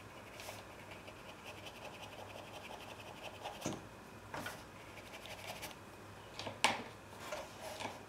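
Flat paintbrush working on watercolour paper: a faint, fast scratching, broken by several short, louder swishes. The loudest swish comes about two-thirds of the way through.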